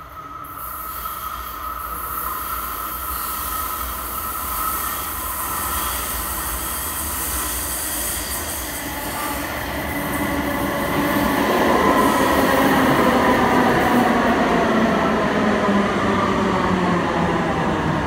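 Alstom Citadis Spirit light-rail train approaching and pulling into the station, growing steadily louder over the first dozen seconds. A high wheel squeal and hiss come from the curved track on the approach. Then several tones fall in pitch as the train slows alongside the platform.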